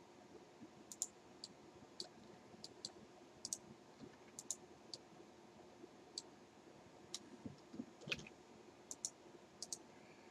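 Faint, irregular clicking of a computer mouse and keyboard, in small clusters, over a low steady room hum. A soft thump comes about eight seconds in.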